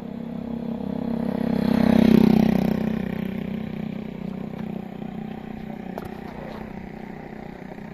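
A motor vehicle's engine passing by: it grows louder to a peak about two seconds in, then fades away.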